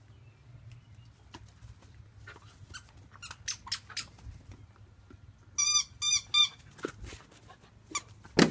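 Rubber squeaky ball squeaking as a puppy bites it: three quick bursts of high squeaks around the middle, with faint clicks before them and a sudden knock at the end.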